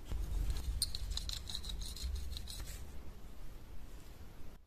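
Rusted steel blade and handle of an old folding knife grating and ticking against each other at the pivot as they are worked by hand: a run of small scratchy clicks about a second in, fading out after.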